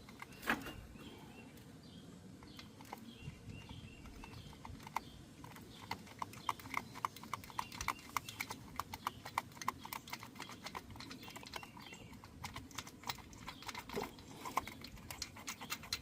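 Light metallic clicks and taps, a few a second, from work at the starter's mounting bolts while the starter is fitted back into the engine bay.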